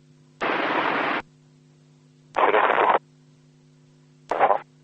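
Airband radio static: three bursts of hiss as transmissions are keyed with no clear speech, each opening with a click. The first lasts nearly a second, the second a little over half a second and the last is brief. A faint steady low hum sits underneath between the bursts.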